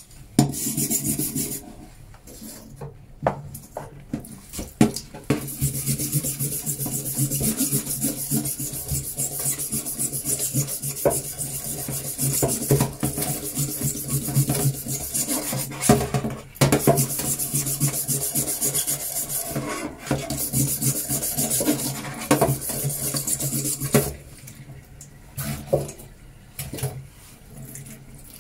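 Steel wire brush scrubbing a mild steel plate in a stainless steel sink, in runs of rasping strokes broken by short pauses. The brush is scouring off mill scale and rust loosened by a soak in sulfuric-acid drain cleaner.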